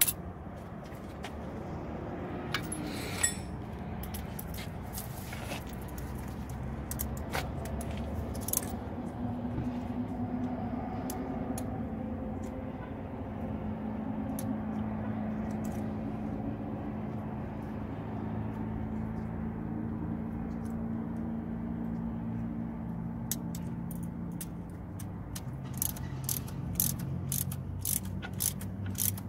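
A motor hums steadily under scattered metallic clinks and taps of brake hardware and tools being handled, the clinks coming thick and fast near the end.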